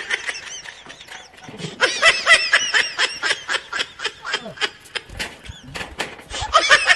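A high-pitched, voice-like chattering in quick repeated syllables, comic in character. It comes in three spells: one at the start, a longer one from about two seconds in, and one near the end.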